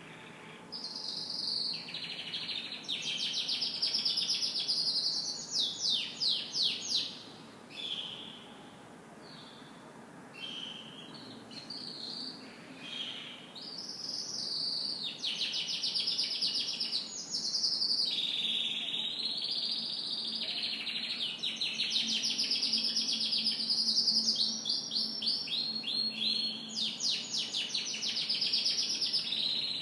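Domestic canary singing a long, nearly unbroken song of rapid trills and rolling phrases, going quieter for a few seconds about eight seconds in before resuming.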